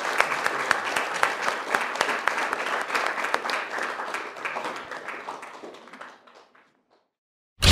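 Audience applauding, a dense patter of claps that fades away about six seconds in, followed by a moment of silence and the sudden start of loud music at the very end.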